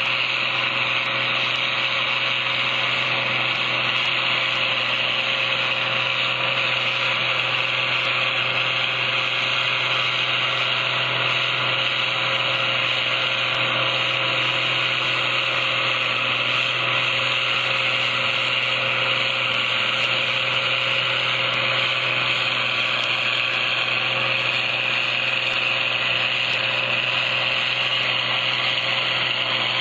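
International Harvester farm tractor engine running steadily under load while pulling a moldboard plow, a constant drone with no change in pitch.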